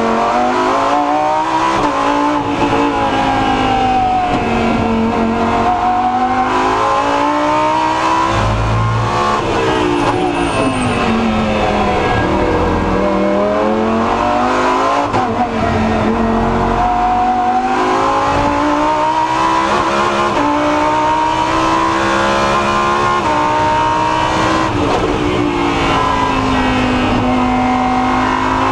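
Lamborghini Huracán Super Trofeo's V10 engine at racing speed, heard from inside the cockpit: its pitch climbs through the gears and drops sharply under braking and downshifts, several times over. A deep rumble comes in about a third of the way in and again just past halfway.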